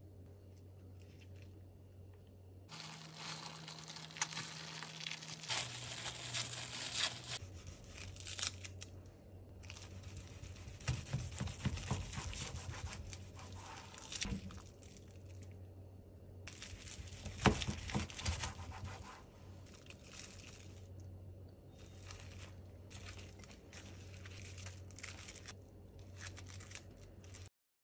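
Crinkling and rustling as a filled rice-paper and tortilla wrap is assembled and rolled by hand, with a few sharper handling and knife-cutting sounds. The sound changes abruptly several times.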